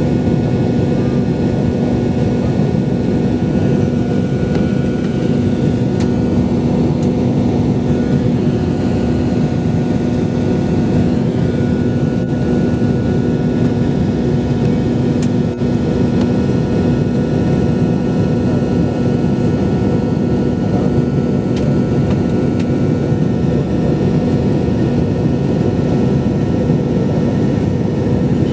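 Steady cabin roar of a McDonnell Douglas MD-82 airliner in flight, from its rear-mounted turbofan engines and the air rushing past the fuselage, with a steady low hum and a faint high whine running through it.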